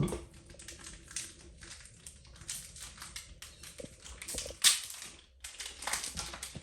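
Trading cards and pack wrappers being handled on a table: a run of quick rustles and light clicks, with one sharper, louder rustle a little past the middle.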